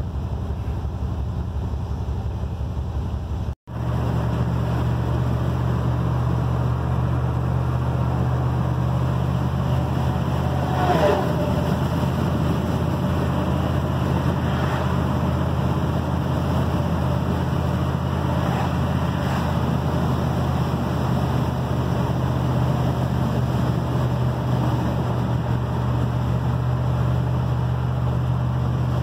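Pickup truck's engine and road noise heard inside the cab while driving, a steady low drone with one short break where the sound cuts out for an instant.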